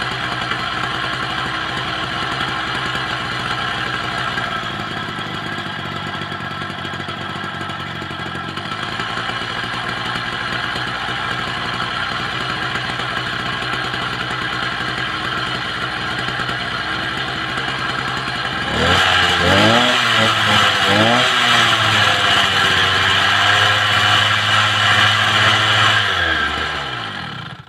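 Motorised bicycle's small two-stroke kit engine running steadily. About two-thirds of the way through it gets louder and the revs rise and fall a few times, then the sound drops away and cuts off at the end.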